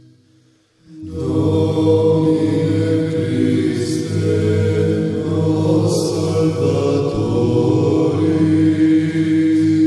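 Music: chanting voices in a Gregorian-style vein over a steady drone. The chant comes in about a second in, after a brief near-silent gap.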